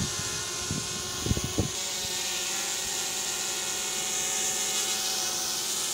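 Small folding quadcopter drone hovering close overhead: a steady high-pitched buzz from its spinning propellers. A few low thumps come in the first second and a half.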